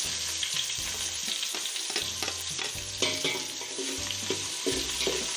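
Sliced onions sizzling in hot sunflower oil in a metal pot, stirred and scraped with a slotted spatula.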